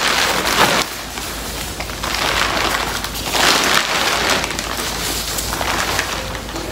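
Thin plastic sheeting crinkling and rustling as it is lifted, shaken out and laid down by hand, in waves that are loudest at the start and about three and a half seconds in.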